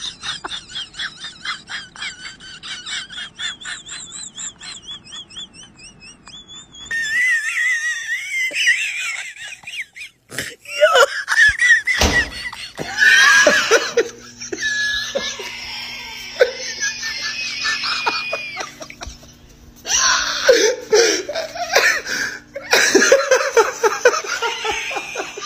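Loud laughter in quick repeated bursts, breaking later into high-pitched squealing laughs.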